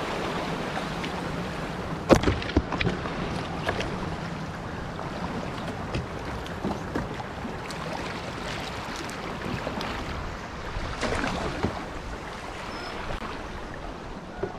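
Fast, high floodwater rushing steadily around a moving canoe, with paddle strokes and a few sharp knocks, the loudest about two seconds in.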